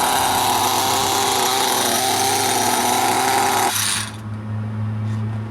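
Land Overlord RC truck's 28 cc engine running at high revs. About three and a half seconds in the revs drop sharply and it settles to a low, steady idle.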